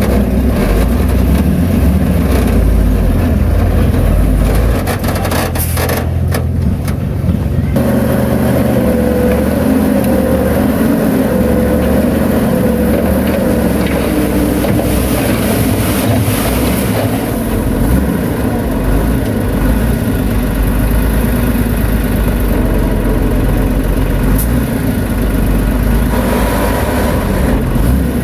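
Diesel engine of heavy earthmoving machinery running steadily and loud, with a wavering whine that rises and falls from about eight seconds in.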